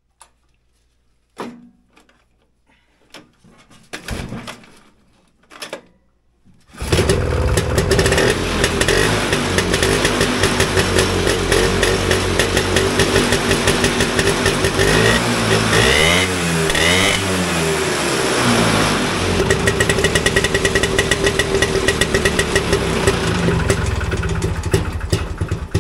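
Vintage snowmobile's JLO single-cylinder two-stroke engine being pull-started. After a few short sputters it catches about seven seconds in and runs loudly, is revved up and down twice midway, and stops near the end. This is its first running after the rebuild, still untuned; it needs a little tuning.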